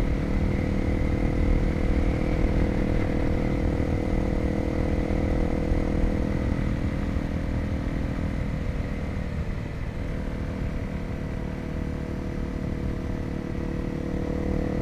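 Single-cylinder dual-sport motorcycle engine running steadily under way, with low wind and road rumble; the engine dips briefly a little past the middle, then holds steady again.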